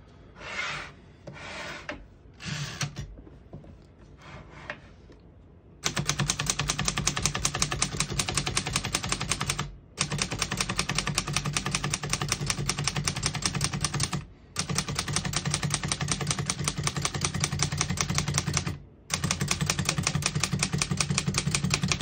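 1956 Underwood Universal portable typewriter: first a few soft sliding sounds as the margin stops and carriage are handled, then, about six seconds in, fast, steady typing of key after key, with three brief pauses.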